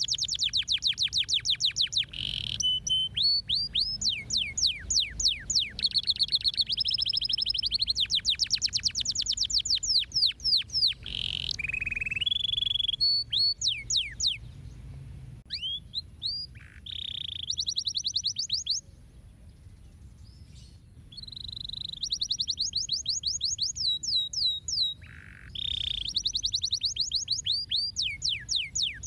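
Domestic canary singing: long, fast trills of repeated sweeping notes that switch from one pattern to the next, with a short pause of about two seconds past the middle.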